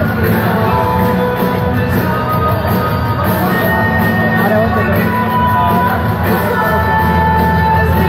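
Loud music with singing playing over an arena sound system, with crowd noise beneath.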